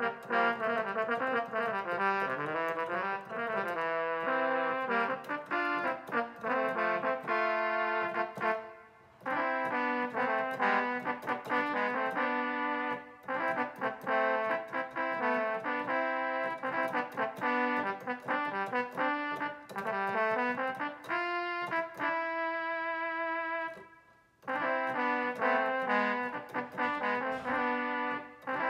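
Roland XP-10 synthesizer played with a brass-sounding preset, in chords and quick runs of notes. It breaks off briefly about nine and thirteen seconds in, and holds a long high chord that stops just before twenty-four seconds in, then resumes.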